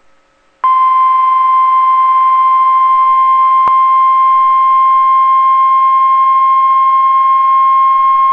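NOAA Weather Radio 1050 Hz warning alarm tone: one loud, steady single-pitch tone starting just under a second in, with a faint click partway through. It signals that a warning message, here a blizzard warning, is about to be broadcast.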